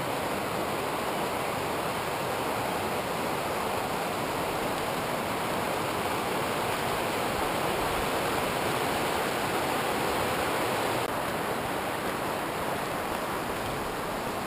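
Mountain stream rushing over rocks, a steady even roar of water; its higher hiss drops a little about eleven seconds in.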